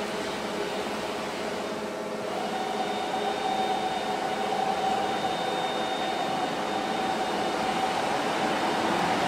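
Five-axis gantry CNC machine running, a steady mechanical whir. About two seconds in a steady whine joins and the sound grows a little louder.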